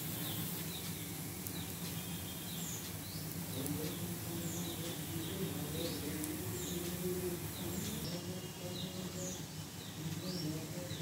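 Small birds chirping: short high calls repeating about once or twice a second, over a steady low hum.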